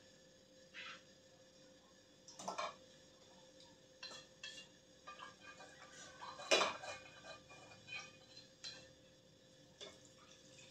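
Metal kitchenware clinking: chopsticks and a metal pan knocking against a cooking pot in scattered, irregular clinks, the loudest about six and a half seconds in. A faint steady hum runs underneath.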